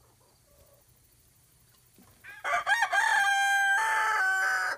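A rooster crowing once, starting a little before halfway: one long crow that holds its pitch, steps down twice toward the end, and cuts off suddenly.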